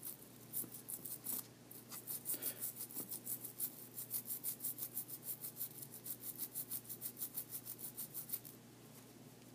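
Alcohol-wet toothbrush bristles scrubbing a small iPhone 5 camera module in quick, even strokes, about five a second, that stop shortly before the end.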